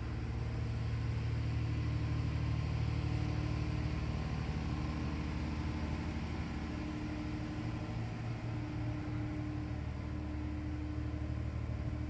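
Diesel engine of the inland tanker Nordwind running steadily at low speed as the vessel passes directly beneath, an even low hum with a fainter steady higher tone coming and going.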